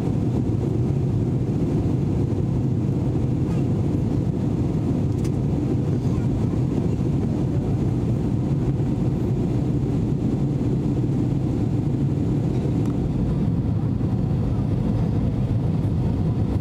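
Steady low rumble of noise in an Airbus A321-200's cabin, from its engines and air rushing past, heard from an economy seat.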